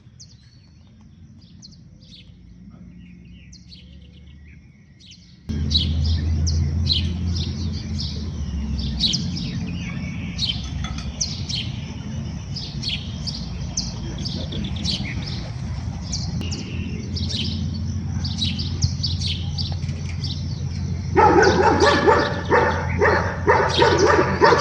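Small birds chirping, many short high calls over and over, over a steady low rumble that starts suddenly about five seconds in. Near the end a louder pitched sound joins in.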